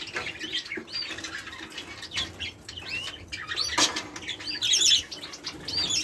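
Small aviary birds, canaries and finches, fluttering their wings in the flight cage, with scattered short, high chirps.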